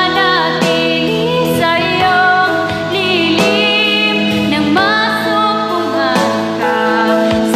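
A woman singing held, wavering notes over backing music of sustained chords.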